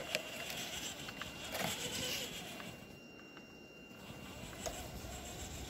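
The small electric motor and drivetrain of an RC rock crawler whine faintly as its tyres churn through wet, sticky snow, with crunching and clicks. The snow packs onto the wheels, so the crawler has almost no grip. The sound drops away for about a second in the middle.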